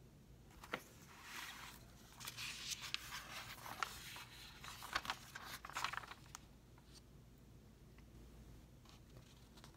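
Glossy pages of a paper catalog being turned by hand: a few seconds of paper rustling and sliding with small sharp crinkles, starting about a second in.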